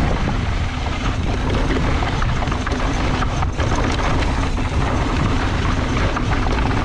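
Mountain bike riding downhill on a dirt trail: wind buffeting the camera microphone with a steady low rumble, and the tyres and bike clattering over bumps.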